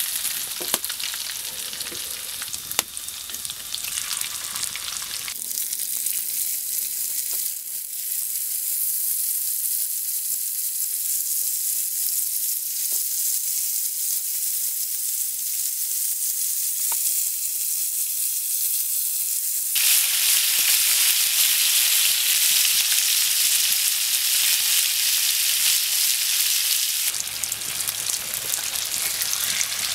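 Fish pieces sizzling as they fry in oil in a shallow iron pan, a steady hiss that gets louder about two-thirds of the way through. A couple of light taps in the first few seconds.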